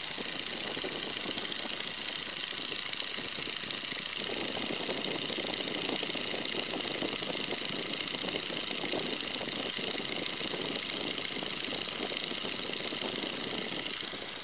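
Boeing N2S-3 Stearman biplane's radial engine and propeller running steadily in flight.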